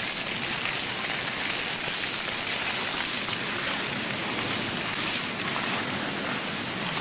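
Steady rushing and splashing of water from theme-park play fountains.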